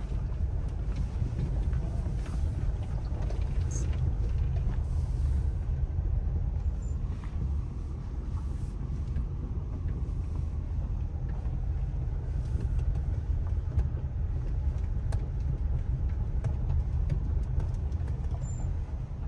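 Mazda car driving slowly on a dirt road, heard from inside the cabin: a steady low engine and tyre rumble with a few faint ticks.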